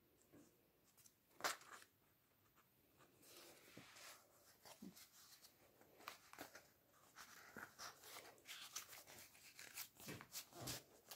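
Paper and card of a handmade scrapbook being handled: a card slid back into its page and the page pressed flat, giving soft scratchy rustles and taps that grow busier in the second half. A single sharp tap about a second and a half in is the loudest sound.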